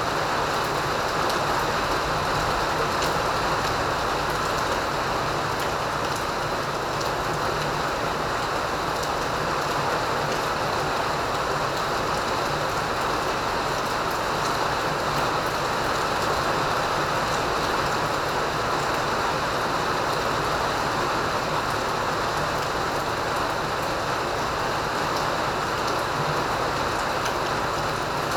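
Rain falling steadily: a continuous, even hiss that does not let up.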